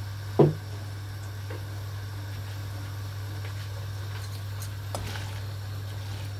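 Pasta being tipped into a pan of chicken in sauce and stirred: one loud knock against the pan about half a second in, then a few faint soft clicks, over a steady low hum.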